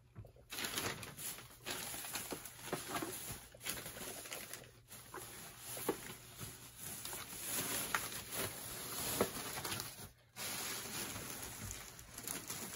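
Handling noise: a steady crinkly rustle with many small clicks and taps, as shopping items, probably wrapped drinking glasses, are moved about and unpacked.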